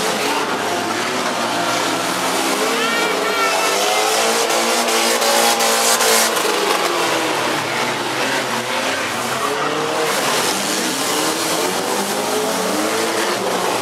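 Several demolition derby cars' engines revving up and down hard while their tyres spin and squeal.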